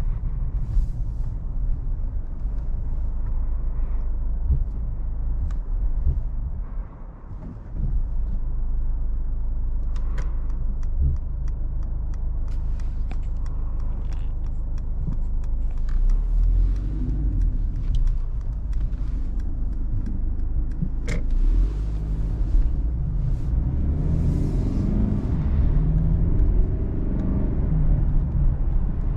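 Mercedes-Benz E220d cabriolet's four-cylinder diesel engine running on the move, with road and wind noise coming into the open cabin with the top down. The sound dips briefly about seven seconds in.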